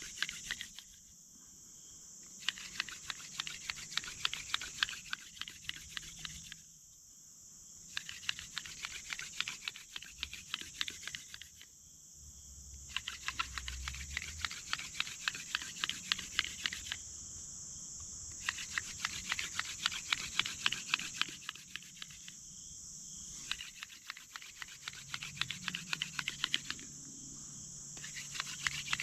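Hand drill for friction fire: a dog fennel spindle spun between the palms, grinding into a cedar fireboard with a fast scratchy whirring. It comes in runs of about four seconds, broken by short pauses about every five seconds.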